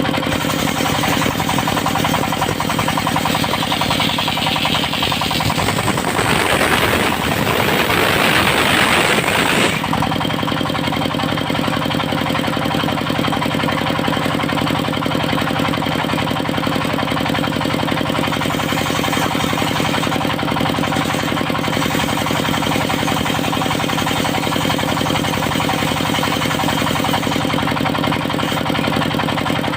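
Engine-driven portable circular sawmill running steadily. A few seconds in, the blade cuts through old teak with a louder rasping hiss for about six seconds, which stops abruptly, and the engine runs on steadily.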